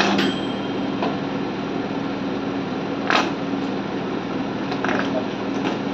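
Plastic squeeze bottles of pizza sauce sputtering in three short hissy spurts as sauce is squeezed out onto a pizza base, over a steady background hum.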